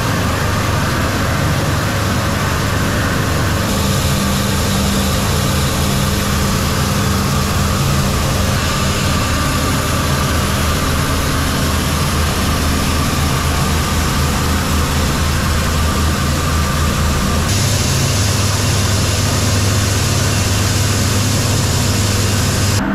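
Flour-mill (atta chakki) machinery running steadily as wheat is fed and cleaned: a constant low motor hum under a dense hiss of moving machinery and grain. The tone shifts abruptly about four seconds in and again near seventeen seconds.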